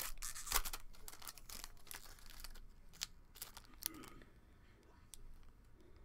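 Foil wrapper of a trading-card pack crinkling and tearing as it is opened, densest in the first couple of seconds, then a few scattered faint crackles as the cards are handled.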